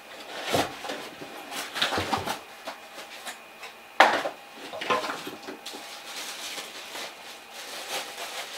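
Hands rummaging in a fabric tool bag: irregular rustling and clunks of tools and packaging being handled, with one sharp knock about four seconds in.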